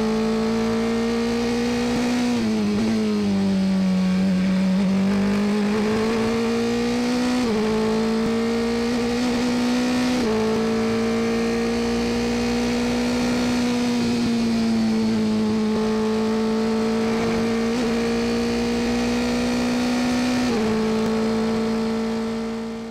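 Dallara F317 Formula 3 race car's engine heard onboard at high revs on a flying lap. It holds a steady high note that sags and climbs back a few seconds in, with a few sudden small jumps in pitch later on.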